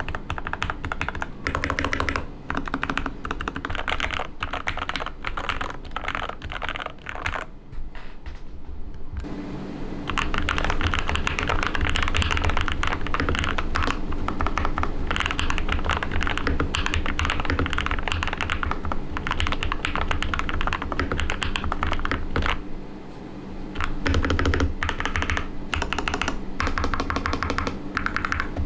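Fast typing on a mechanical keyboard with linear switches: Gateron Milky Yellows at first, then, about nine seconds in, lubed Akko CS Silvers in a TM680 keyboard, which sound louder with a fuller, deeper clack. The typing pauses briefly near the end.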